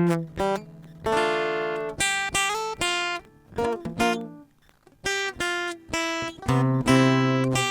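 Guitar music: chords struck one after another, each ringing and fading, with a short gap a little past halfway.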